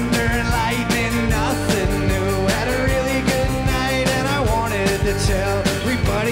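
A rock band playing live: drums keeping a steady beat under bass, electric guitar, acoustic guitar and keyboard.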